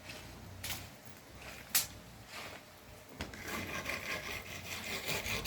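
A few sharp knocks, then a steady scraping, rasping noise starting about three and a half seconds in.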